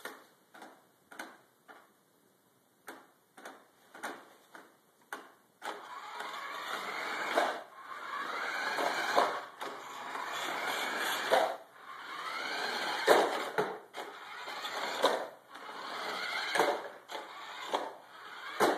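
Small electric motors of a self-driving, Arduino-controlled RC car chassis. First a string of short clicks and buzzes as the motors are switched on and off in quick succession, which the owner puts down to the left-turn and right-turn programming fighting each other and toggling the turn motor. Then, about six seconds in, the drive motor runs in long stretches with a whine that rises and falls, broken by a few sharp knocks, and stops abruptly at the end.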